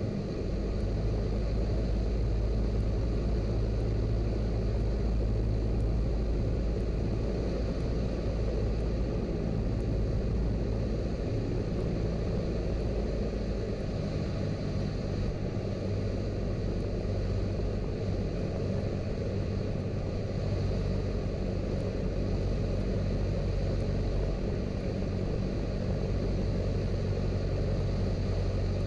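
Cessna 172's piston engine and propeller running steadily in flight, a continuous drone whose deepest part eases off about twelve seconds in.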